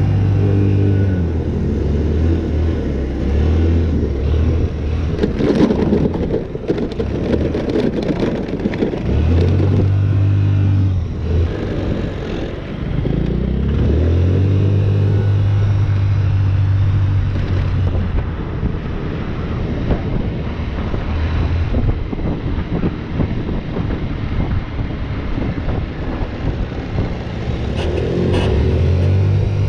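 Car engine and road noise heard from inside the cabin, the engine revving up and easing off as the car drives. A stretch of rapid clicks runs from about five to nine seconds in.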